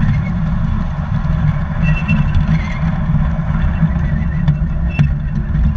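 Garden-scale model train rolling along its track, picked up by a camera riding on one of its cars: a steady low rumble of wheels and running gear, with a sharp click about five seconds in.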